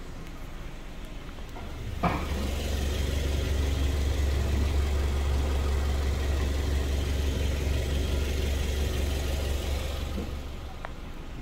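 Hyundai Avante AD's engine idling steadily, heard up close from beneath the car, growing louder about two seconds in after a short knock and falling back near the end.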